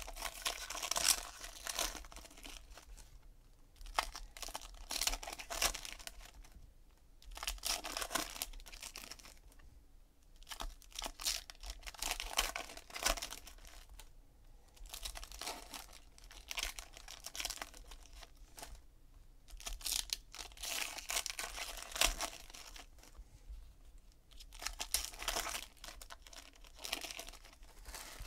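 Trading-card foil packs being torn open by hand and their wrappers crinkled, in repeated crackly bursts a second or two long with short pauses between.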